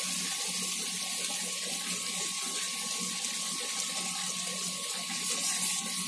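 Grated carrots in milk simmering in a kadhai, bubbling and hissing steadily as the halwa cooks down and its moisture dries off. A faint steady hum runs underneath.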